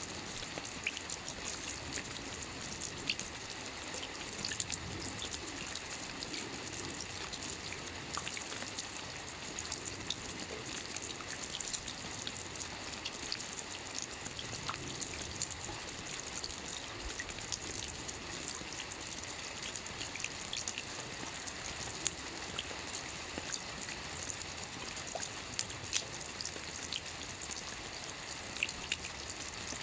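Steady rain, an even hiss with many individual drops ticking and pattering close by.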